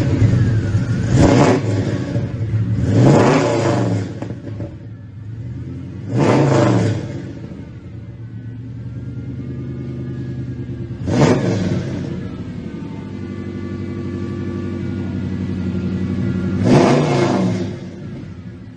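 2004 Pontiac GTO's 5.7 V8, breathing through long tube headers and a freshly installed full dual exhaust, idling and blipped hard about six times, each rev rising and falling quickly back to idle.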